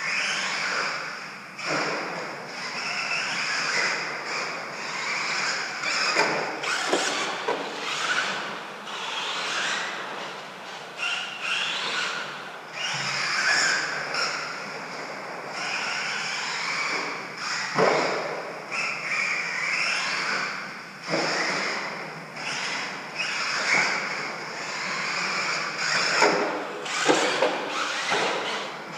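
Radio-controlled stadium truck running laps on a dirt track: a steady high motor whine and tyre noise rising and falling with the throttle, broken by several sharp thumps and knocks, the loudest near the end.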